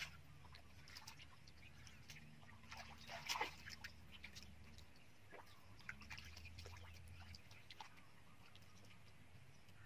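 Faint, scattered small splashes and squelches of hands groping through shallow muddy water, with a low steady hum underneath.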